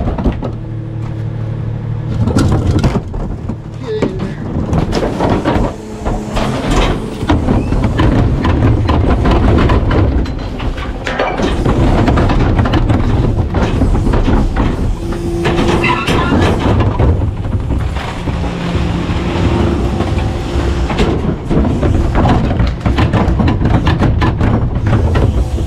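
Rear-loader garbage truck with its engine running under a steady low drone, while its packer crushes trash in the hopper with repeated clattering and crunching knocks.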